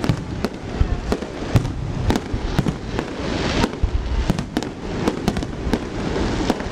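Firework display: a rapid, irregular string of sharp bangs and reports, several a second, over continuous crackling.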